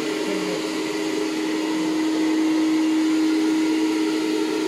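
Handheld hair dryer running steadily: a rush of blown air over a constant motor hum.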